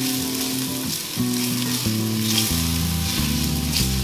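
Sliced onion and garlic sizzling in hot olive oil in an enamelled cast-iron Dutch oven as they brown, stirred with a silicone spatula. Low background music runs underneath.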